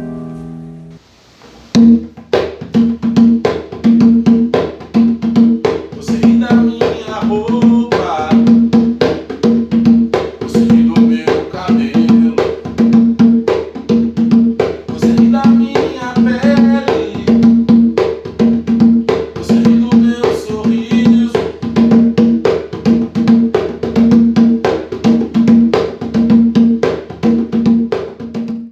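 Hand percussion played in a steady, busy rhythm, starting about two seconds in, with a low pitched beat recurring about every three quarters of a second.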